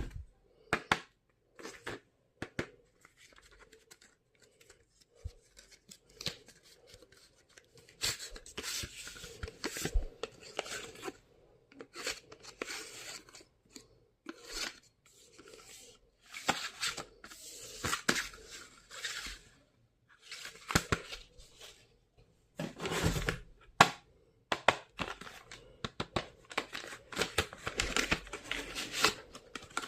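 Stationery packaging being opened and handled: irregular bursts of rustling, tearing wrapping and sharp clicks, with short pauses between them.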